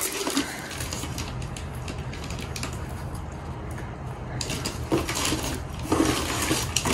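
Light rustling and small knocks as a cardboard box is unpacked and paper picture books are handled, over a steady low hum.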